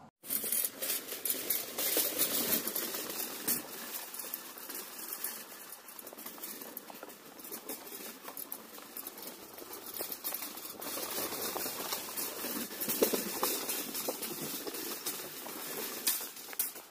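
Metal Walmart shopping cart being pushed along, rattling continuously as its wheels clatter over the planks of a wooden bridge deck.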